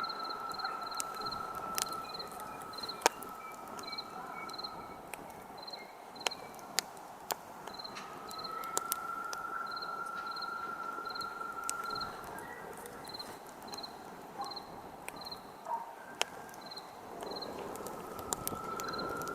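Campfire crackling with scattered sharp pops, over crickets chirping steadily at about two chirps a second. A thin steady whistle fades in and out every few seconds.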